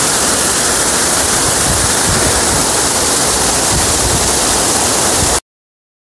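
Waterfall rushing steadily, loud and close, as water pours down a rock face. It cuts off abruptly to silence about five seconds in.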